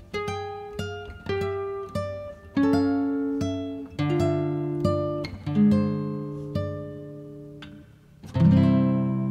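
Background music: an acoustic guitar playing single plucked notes that ring and fade, with a louder strummed chord near the end.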